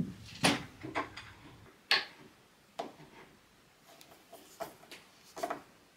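Small wooden test blocks being handled and set against a plywood test rig: irregular light clicks and knocks of wood on wood, about ten in all, the sharpest about half a second and two seconds in.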